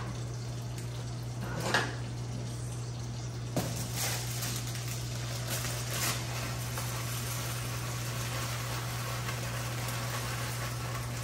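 A pot of water heating on an electric hob: a steady hiss over a low hum, with a few light knocks and clinks of kitchen utensils in the first six seconds.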